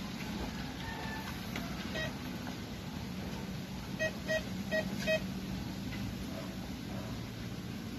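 Handheld metal detector beeping: one faint beep about two seconds in, then four short beeps about a third of a second apart a little past the middle.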